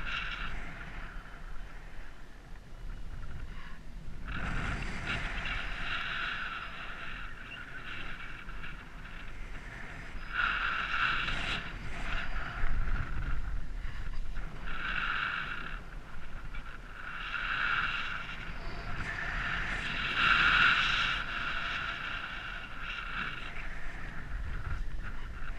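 Paragliding variometer sounding its climb tone, a high pitched beeping that swells and fades every second or two, signalling a strong climb in a thermal. Wind rushes steadily over the microphone underneath.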